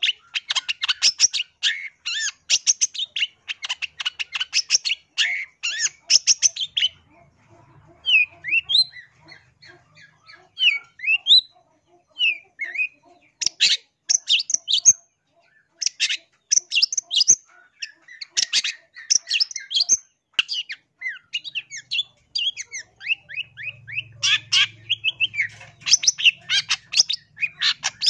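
Long-tailed shrike (cendet) singing: bursts of fast, harsh chattering notes. In the middle comes a quieter stretch of short, sliding whistled notes, and then the chattering resumes.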